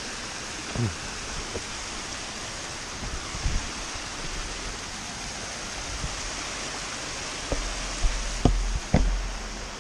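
Small mountain stream tumbling down a rocky gill in a steady rush of falling water. A few short low thumps and knocks break through, the loudest ones near the end.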